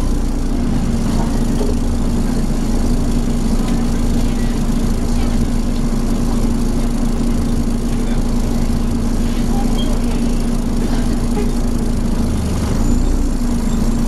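Volvo B7TL bus, heard from inside the saloon: its straight-six diesel idling under a steady, loud droning hum from the engine cooling fan, the 'hoover' sound these buses are known for.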